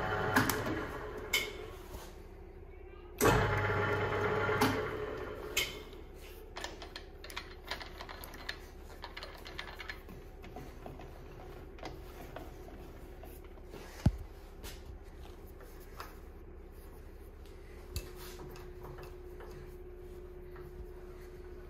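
Ferm FM760/300T metal lathe's mechanism running in two short bursts in the first five seconds. Then a faint steady hum with scattered light clicks and two sharp knocks.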